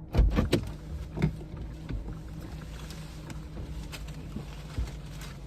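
Car engine idling steadily, with a cluster of loud clunks in the first half second, another clunk about a second in, and a lone knock near the end.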